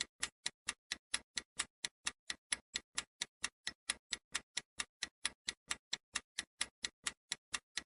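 Clock-like ticking sound effect, steady and even at about four ticks a second: a countdown timer running during a quiz answer pause.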